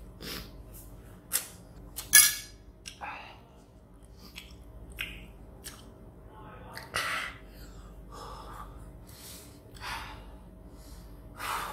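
A person eating very spicy noodles: slurping mouthfuls and drawing sharp sniffs and gasping breaths against the chilli heat. These come as irregular short bursts, the loudest about two seconds in and another strong one about seven seconds in.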